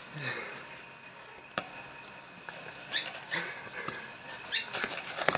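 Pet bird giving a few short, high chirps and squawks at scattered moments, with a single sharp click about one and a half seconds in.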